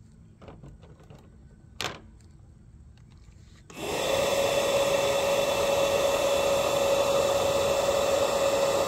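Bubble gun's small motor switched on about four seconds in and running steadily with a constant whine. A single sharp click comes about two seconds in.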